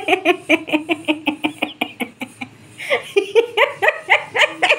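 A woman laughing in a fast run of short "ha" pulses. It breaks off about two seconds in, then starts again after a brief pause.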